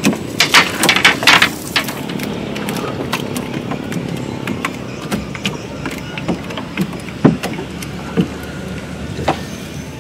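Cast net being gathered and readied for a throw, its weights clicking and rattling in a quick cluster over the first two seconds, then occasional knocks. Under it a small boat motor runs steadily.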